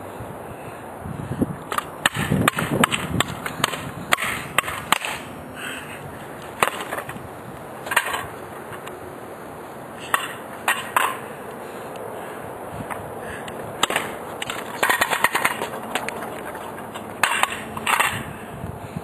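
Irregular clusters of sharp clacks and knocks on hard pavement, several quick hits at a time with pauses between, over a steady outdoor noise.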